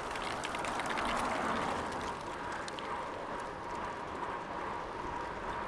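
Steady rushing noise of a bicycle being ridden on a road: tyre and road noise mixed with wind over the action camera's microphone on a windy day.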